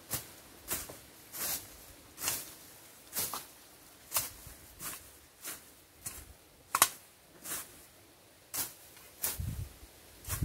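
Machete slashing through grass and weeds, a short sharp cutting swish repeated about every three-quarters of a second, a dozen or so strokes.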